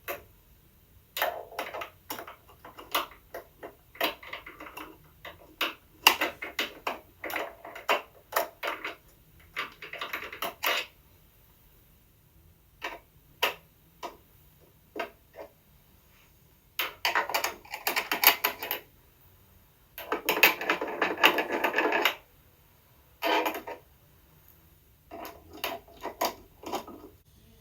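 Irregular clicks and knocks of the cover being handled and fitted back onto a Juki DDL 9000C SMS sewing machine's motor control box. There are two longer rustling, scraping stretches about two-thirds of the way through.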